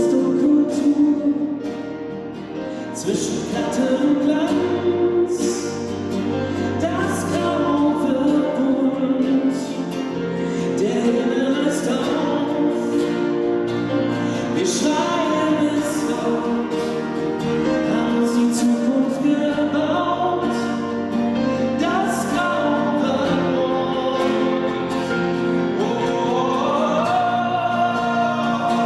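A male singer performing a slow song with piano accompaniment; the voice carries a melody that glides and holds over sustained piano chords.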